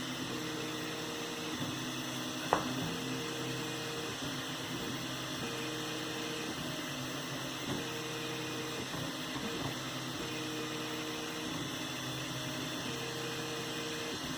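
3D printer's stepper motors whining in short steady tones that start and stop every second or so as the axes move, over a steady hum. A single sharp click comes about two and a half seconds in.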